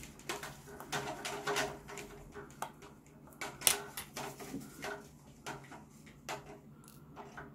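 Faint, irregular clicks and taps of a fine screwdriver and fingers working on a Seiko 6117 automatic watch movement in its holder, as the screws of the pallet fork bridge are undone; one louder tap a little past halfway.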